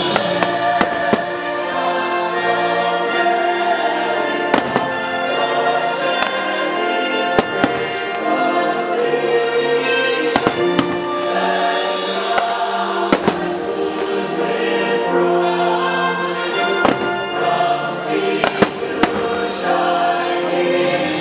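Fireworks going off in scattered sharp bangs, several in quick succession near the end, over a loud show soundtrack of choral music singing American folk songs.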